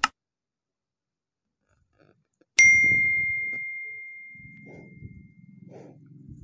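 A single bell ding, struck once about two and a half seconds in and ringing at one clear high pitch as it fades over about three seconds: a subscribe-button notification sound effect. A short click comes at the very start, and a faint low rumble begins near the end.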